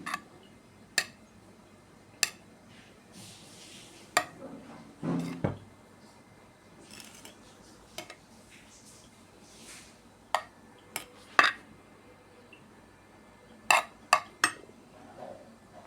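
Metal cutlery clinking and scraping against a plate or dish: about a dozen sharp, separate clinks, with softer scraping between them and a duller knock about five seconds in.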